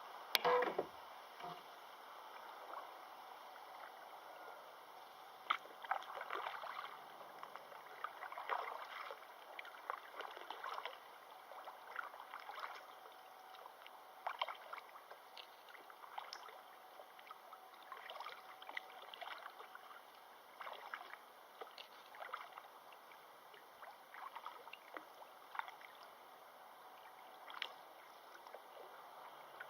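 Water splashing and gurgling in short, irregular bursts over a steady soft rush of river water, with one sharp knock right at the start.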